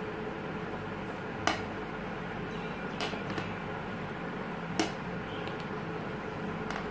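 Knitting needles clicking against each other as stitches are worked: three short sharp clicks spaced a second or two apart, the last the loudest, over a steady low room hum.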